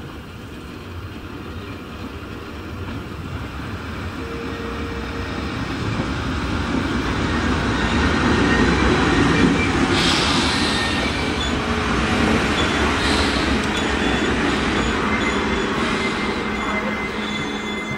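Rhaetian Railway Ge 4/4 I electric locomotive pulling a train into the station, growing louder as it approaches, with wheels rumbling on the rails. Thin high wheel squeal comes in about halfway through as it slows for the stop, and a steady hum sets in near the end.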